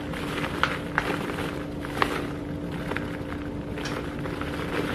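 Flour being added to a container of seasoned chicken: a few light clicks and taps, about half a second in, at one second and at two seconds, over a steady hum with one constant low tone.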